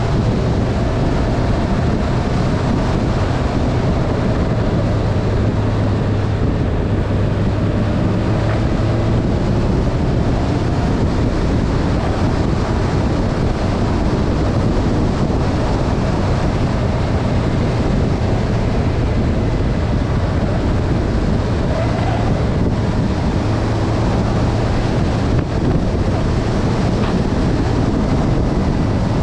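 Motorbike engine running steadily at cruising speed under heavy wind rush on the camera's microphone, the engine hum shifting a little in pitch now and then.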